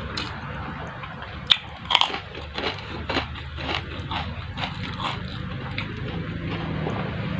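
A person chewing crunchy food with biting crunches: two sharp crunches about a second and a half and two seconds in, then a run of smaller irregular ones.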